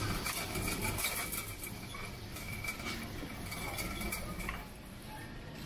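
Wire shopping trolley rattling and clinking as it is pushed along, the groceries inside jostling. A thin steady high-pitched tone runs through most of it and stops about four and a half seconds in.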